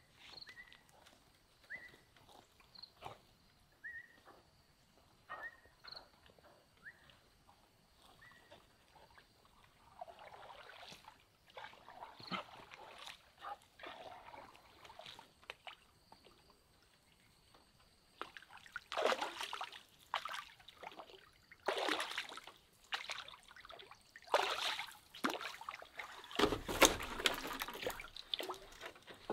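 A long pole working in the water beside a floating bamboo raft, sloshing and splashing in repeated strokes that grow loud in the second half. In the first third, short high whines from a dog come about once every second or two.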